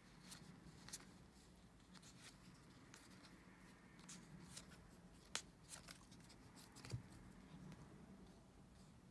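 Faint soft ticks and rustles of paper-stock trading cards being slid one at a time through the hands, with a louder flick about five and a half seconds in and another near seven seconds.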